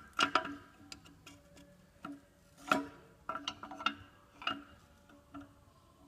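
Irregular metallic clinks and ticks, about a dozen, some ringing briefly, as a rusty disc and hub assembly is handled.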